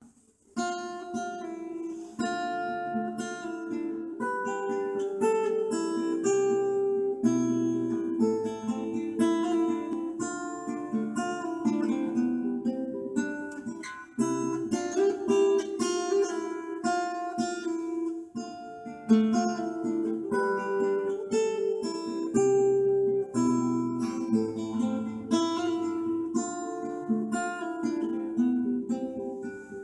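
Acoustic guitar picked and strummed through a small guitar amplifier built into a WW2 ammo can, playing chords mixed with single melody notes. It starts about half a second in.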